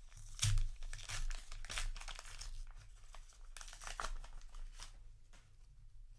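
A trading-card booster pack wrapper being torn open and crinkled by hand: a dense run of crackles and rips, with a dull bump about half a second in, thinning out after about five seconds.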